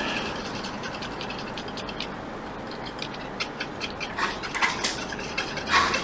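Light, irregular scratching and clicking of a small brush scrubbing the solder pads of a circuit board wet with isopropyl alcohol, busier after about four seconds, over a steady background hiss.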